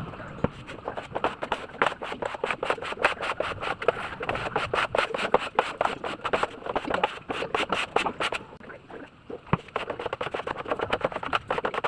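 Rapid, irregular scraping and rubbing strokes, with a quieter pause about two-thirds of the way through.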